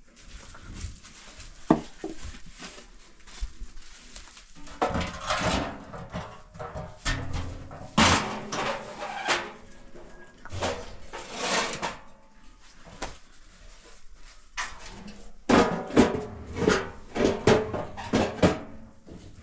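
Metal cookware and a round metal stove being handled, with clanks and knocks. Near the end a metal door's latch rattles.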